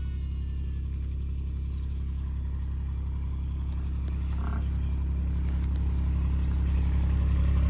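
A vehicle engine running steadily at low revs, growing gradually louder.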